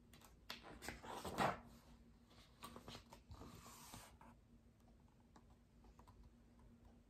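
Pages of a hardcover picture book turning and rustling as the book is handled, with soft clicks and taps: one burst of rustling in the first second and a half, another around three to four seconds in. A faint steady hum runs underneath.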